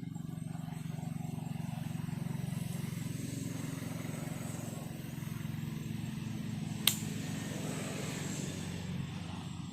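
An engine running steadily as a low hum, swelling slightly about two seconds in, with a single sharp click about seven seconds in.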